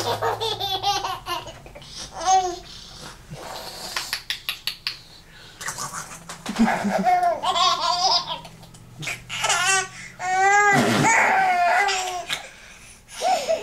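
Infant girl laughing in several bouts of rapid, pulsing giggles, with short pauses between them and the longest bout about two-thirds of the way through.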